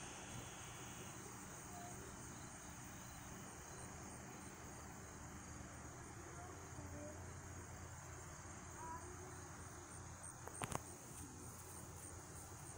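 Faint, steady high-pitched chirring of insects at dusk, with a fast pulsing element in it. A single short knock comes about ten and a half seconds in.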